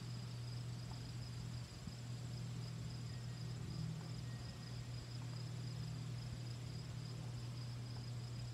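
Insects chirping in a continuous, evenly pulsing high trill, over a steady low hum.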